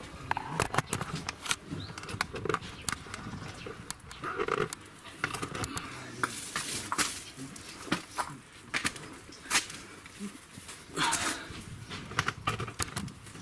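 Irregular metal clicks and clinks of hand tools working the nut on the front lower control arm's ball joint, with a few short calls in the background.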